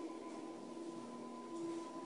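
Quiet background drone of several steady held tones, played under the performance.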